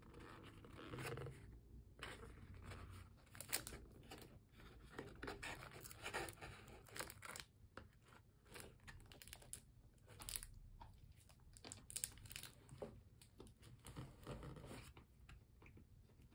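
Hands handling a paperboard bento box and the food inside: faint, irregular rustling, crinkling and scraping of card and paper, dying away near the end.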